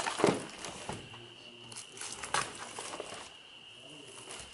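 Paper pages of a worn textbook being flipped and rustled by hand: several quick page-turning rustles in the first two and a half seconds, the loudest about a quarter-second in, then softer handling of the pages. A faint steady high tone sits underneath.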